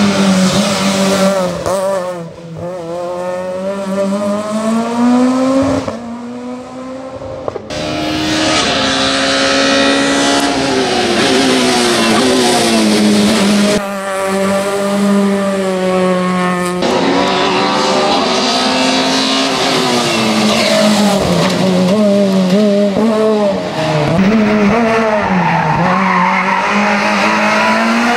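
Peugeot 207 S2000 rally car's two-litre, naturally aspirated four-cylinder engine at full race revs. Its pitch climbs through the gears and drops at each shift or lift. It fades briefly twice in the first eight seconds and comes back loud.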